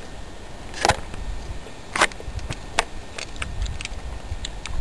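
Metal pliers clicking and clacking against a fishing hook as it is worked free from a bass's mouth: a few sharp clicks about a second apart, then several lighter ticks, over a low rumble.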